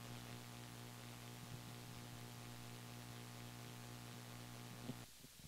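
Faint steady electrical hum with a low hiss from the sound system, cutting off suddenly about five seconds in.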